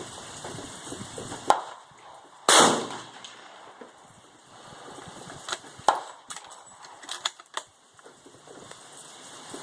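A rifle shot about two and a half seconds in, the loudest sound, with a short ringing decay, then a scatter of short sharp cracks and knocks.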